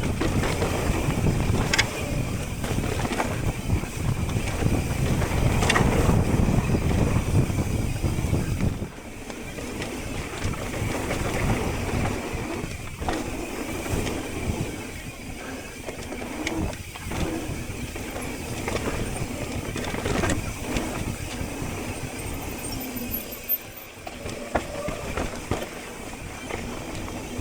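Riding a mountain bike down a dirt trail: wind rushing over the camera microphone and tyres rolling over the ground, with a few short clicks and rattles from the bike. The rush is louder for about the first nine seconds, then drops somewhat.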